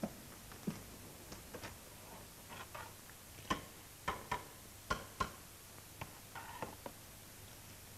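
Footsteps of boots on a hard floor, a dozen or so irregular sharp steps, some in quick pairs, stopping about seven seconds in.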